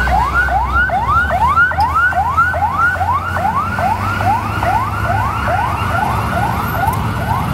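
Fire engine siren sounding in quick repeated rising sweeps, about two a second, each climbing and then dropping back sharply, over a low rumble.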